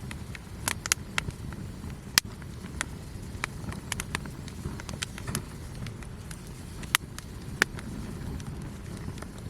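Wood campfire crackling, with irregular sharp pops over a low steady rumble of the burning fire; the sharpest pop comes about two seconds in.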